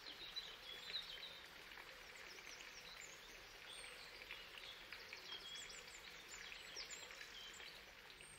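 Faint outdoor ambience with scattered short, high chirps of small birds.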